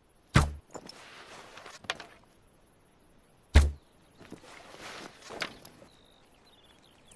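Recurve bow shot twice, about three seconds apart. Each shot is a loud, deep thump of the string's release, followed by a hiss of about a second and a half and then a sharp click.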